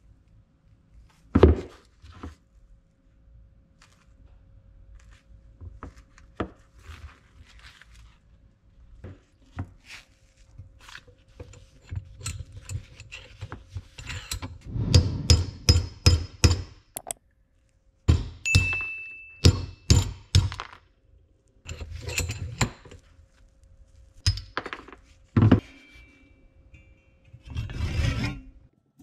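Rusty steel hammer head being handled and clamped in a bench vise: irregular metal clunks, clinks and knocks, busiest in the middle, with a short squeak. Near the end comes a stroke of a hand saw cutting into the old handle stub in the hammer's eye.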